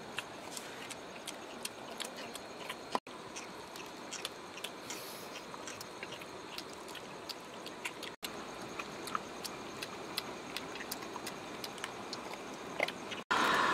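Several puppies chewing and crunching on grilled pork scraps in a wicker basket: a steady scatter of small clicks and crackles over a low hiss.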